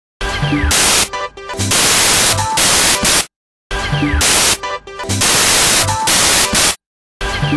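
Electronic background music built on loud bursts of white-noise static with short pitched notes and a falling sweep, a loop that repeats about every three and a half seconds and cuts off into dead silence twice.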